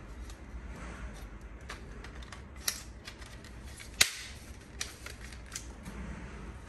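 A few sharp plastic clicks and taps as the circuit board of a Huawei B612 router is pressed and seated back into its plastic housing. The loudest click comes about four seconds in.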